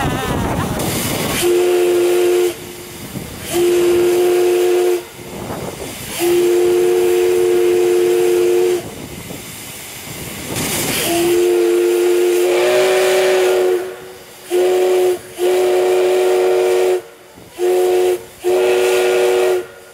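Steam whistle of Taiwan Railway DT650-class (JNR D51-type) steam locomotive DT668 sounding eight blasts: a short one, then three long ones, then two pairs of short-and-long. The pitch lifts briefly in the middle of the fourth blast, and a steady hiss of steam runs between the blasts.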